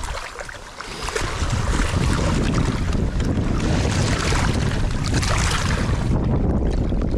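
Water sloshing and lapping in the rocky shallows around a hand releasing a small smallmouth bass, under steady wind buffeting the microphone. The noise swells about a second in and holds steady.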